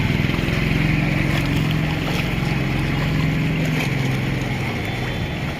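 A motor engine running steadily under a hiss, easing off slightly near the end.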